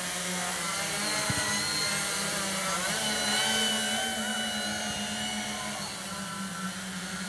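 Hexacopter's six Digitech X80 brushless motors spinning 11x5 inch propellers, humming steadily in a low hover, with the pitch shifting slightly as the throttle changes. The hum drops a little in loudness near the end as the craft moves off.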